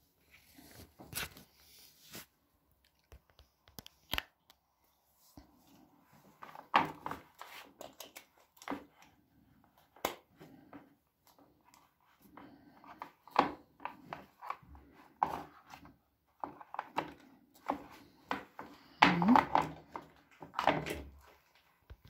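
Intermittent handling noises: scattered clicks, knocks and rustling as things are moved around an electric kettle, with a brief low voice sound near the end.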